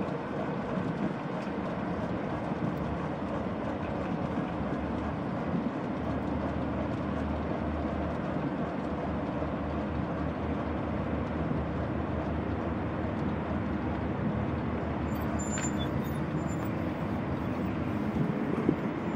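Airbus H145 helicopter on the ground with its five-bladed main rotor turning slowly: a steady turbine whine over a constant rushing noise.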